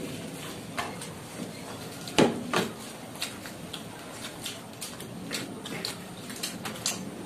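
Hand-eating sounds: puris torn apart by hand, fingers dabbing pieces into dum aloo on paper plates, and chewing, heard as many small scattered clicks and ticks. Two sharper knocks stand out about two seconds in.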